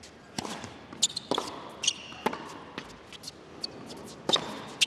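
Tennis rally on a hard court: a serve and then an exchange of shots, with sharp racket-on-ball strikes and ball bounces coming every half second to a second. Short shoe squeaks sound a couple of times as the players move.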